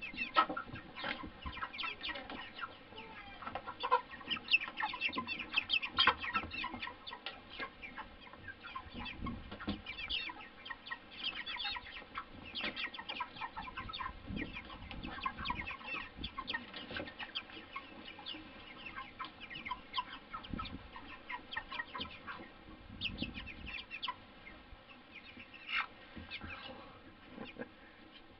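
A flock of white broiler chickens clucking, with many short calls overlapping throughout.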